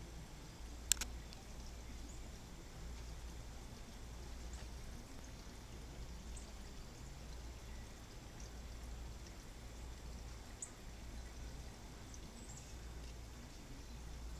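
Faint outdoor garden ambience: a steady low rumble and soft hiss, with a few faint, brief high chirps of distant birds scattered through and a single sharp click about a second in.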